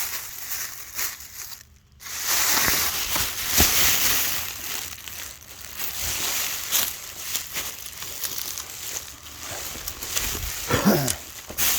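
Close rustling and crunching of brush, twigs and dirt being pushed through and handled, continuous after a brief hush about two seconds in. Near the end comes a short sound that falls in pitch, like a brief grunt.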